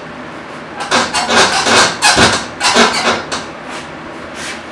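A quick run of scraping and knocking handling noises from hands and parts being worked in a VW Beetle's engine compartment, densest in the middle second or two, with a few single clicks around it.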